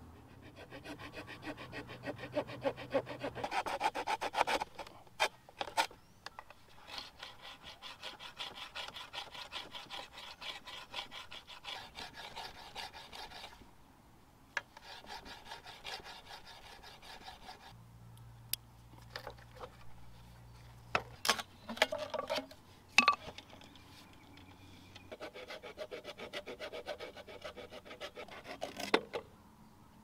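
Small multi-tool saw blade cutting through green bamboo in runs of quick back-and-forth strokes, with short pauses between runs. A few sharp cracks or knocks come about two-thirds of the way through and are the loudest sounds.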